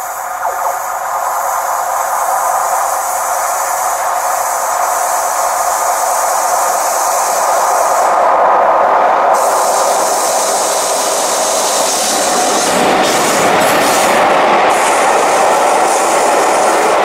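Diesel-hauled train of locomotive and coaches approaching and running through the station, the sound building as it nears. The coaches then pass close by with wheel rumble and clickety-clack on the rails.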